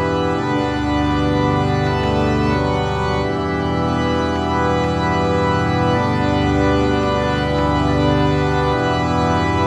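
Minimalist music of long sustained chords, the low notes changing every two to three seconds.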